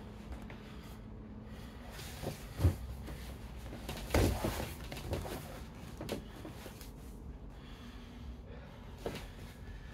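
Two people grappling on foam floor mats: scuffling and breathing, with a sharp thump a little under three seconds in and a heavier thump and scramble about four seconds in.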